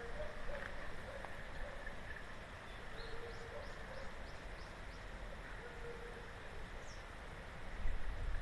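Outdoor background noise with faint, distant birdsong: a few short, level low notes, a quick run of short high chirps about three seconds in, and one falling high whistle near the end. A low rumble rises just before the end.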